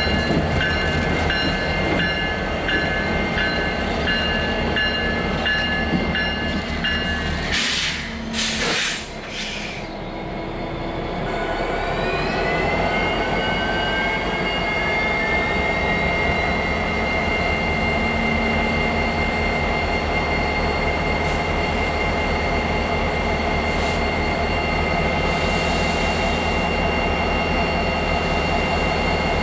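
Diesel freight train running, with a constant low rumble and several steady high-pitched whining tones. After a sudden change about eight seconds in, the whine glides up in pitch and then holds steady.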